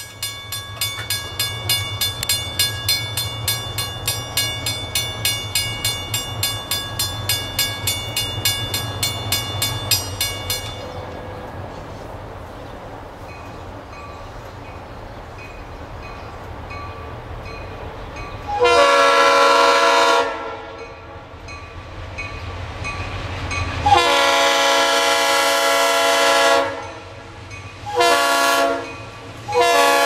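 Grade-crossing warning bell ringing in steady strokes, stopping about ten seconds in, then the low rumble of approaching ALCo diesel locomotives. From about nineteen seconds in, the lead locomotive's multi-chime air horn blows the grade-crossing signal: long, long, short, then long again.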